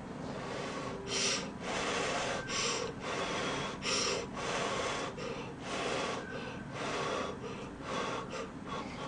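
Close-miked eating noises: airy slurps and breaths at the mouth while eating spoonfuls of hot brown-rice nurungji soup, in a string of short bursts about once a second.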